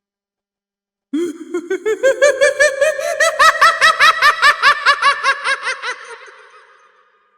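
Creepy clown laugh sound effect: a long, rapid cackle of quick 'ha' pulses starting about a second in. It climbs in pitch at first, then holds and fades away near the end.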